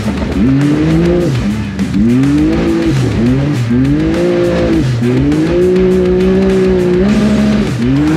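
Can-Am side-by-side's engine heard from inside the cockpit, revving up and easing off again and again as it is driven hard over a wet, muddy track. It holds a steady pitch for about two seconds past the middle, then picks up again near the end.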